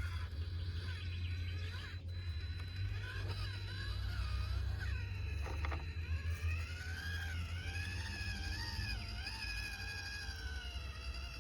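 Electric motor and gearbox of a 1/18-scale FMS FCX18 rock crawler whining, the pitch rising and falling as the throttle is worked over rocks, over a steady low hum.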